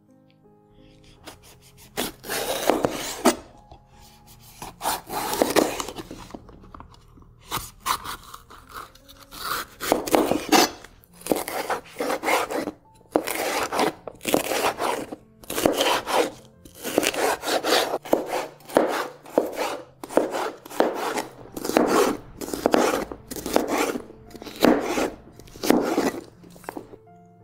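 Chef's knife slicing and dicing an orange bell pepper on a cutting board: a long series of separate cutting strokes, longer at first, then shorter and quicker.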